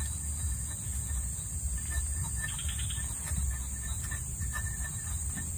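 Steady high-pitched drone of an insect chorus, crickets or similar, over a low rumble, with faint scattered ticks.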